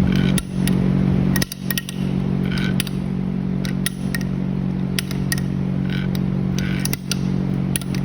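Light clicks and clatter as the freshly rebuilt Kawasaki KX85 bottom end, with its new crank and crank bearings, is spun and handled by hand. A steady low machine hum runs underneath.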